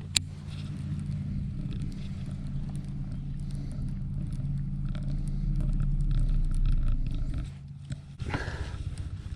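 A steady low motor hum that swells and then drops away about seven and a half seconds in, with a sharp click just after the start.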